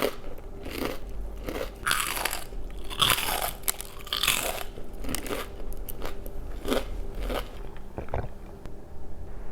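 Close-miked biting and chewing of crunchy fast food, with repeated crisp crunches.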